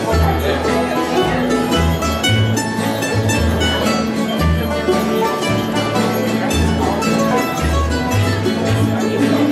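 Bluegrass band playing: acoustic guitars, banjo, fiddle and upright bass, with the bass walking a steady line under the plucked strings.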